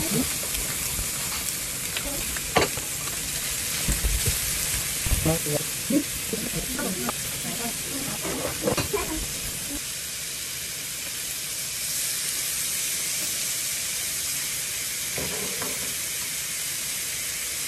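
Pork belly and beef slices sizzling on an electric griddle, a steady frying hiss. Chopsticks click and knock against the plate a few times as the meat is turned, mostly in the first half.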